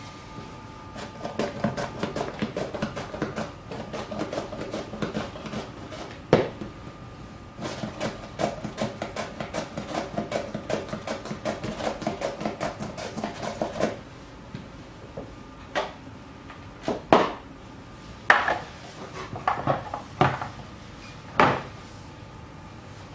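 Vegetable pushed back and forth over a mandoline slicer's blade: a quick run of scraping strokes, about four a second, with a short break partway through. After about fourteen seconds, a handful of separate knocks and clatters.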